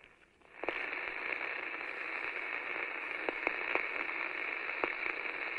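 TV-style static hiss, a steady crackling noise that starts about half a second in, with a few sharp clicks scattered through it.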